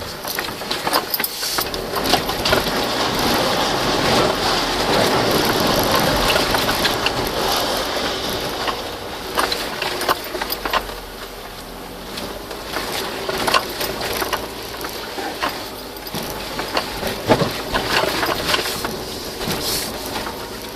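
A vehicle's engine running as it drives over a rough forest track, with frequent crunches and knocks from the wheels and body on the uneven ground.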